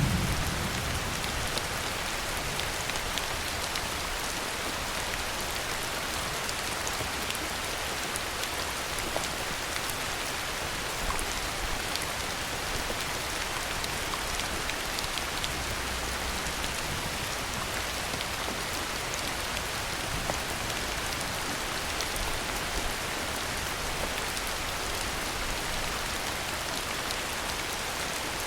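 Heavy rain falling steadily, a dense even hiss with many individual drops ticking through it. The tail of a low thunder rumble dies away in the first second.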